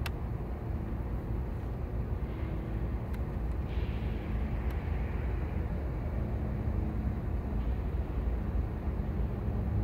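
Distant train rumbling low and steady, with a faint engine hum.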